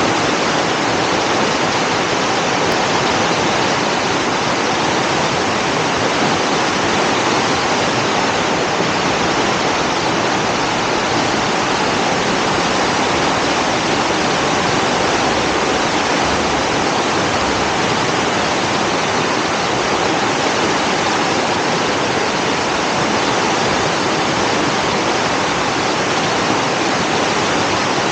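A river in flood rushing hard, a loud, steady wash of turbulent water.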